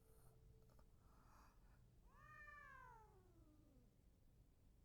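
A cat meowing once: one long, faint call that falls steadily in pitch.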